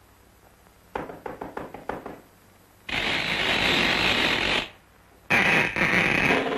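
Cartoon sound effects: a quick run of clicks and knocks, then two long rushing, hissing noises, the second with a thin whistle-like tone in it.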